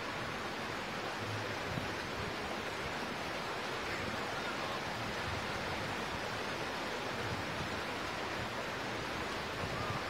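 Heavy rain falling steadily: an even, constant hiss with no let-up.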